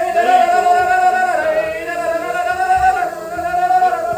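Singing: a voice holding long, drawn-out notes with slight rises and falls in pitch.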